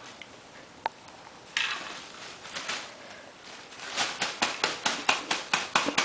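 Mouse cage being knocked to empty out the last bedding and rubbish: a single click, a short rustle, then a rapid run of light taps about five a second.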